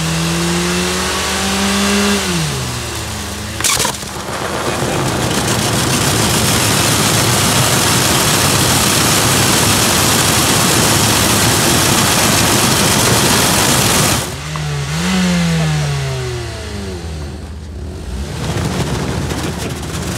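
Mazda 3 four-cylinder engine revving hard during a burnout, its front tyre spinning against the ground. About four seconds in, the tyre bursts with a single sharp bang. A loud, steady rushing noise follows for about ten seconds as the wheel keeps spinning on the burst tyre, and then the engine revs up again near the end.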